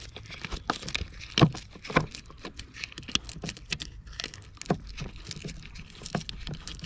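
Cross-head screwdriver undoing screws on a plastic air filter box cover, with irregular small clicks and scrapes.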